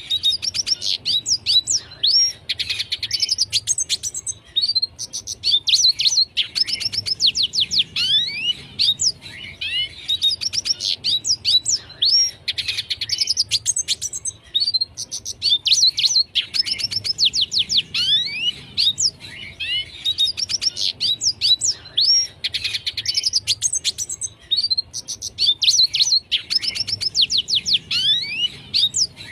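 Red siskin singing continuously: rapid high twittering phrases of quick chirps and downward-sweeping notes, a few seconds each, with short pauses between them.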